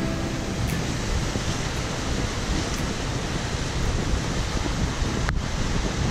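Wind buffeting the microphone over surf washing across a reef, a steady rushing with rumbling gusts. The sound drops out for an instant about five seconds in.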